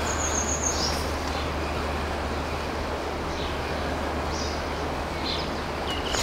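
Fast mountain river rushing steadily, with a few short bird chirps over it.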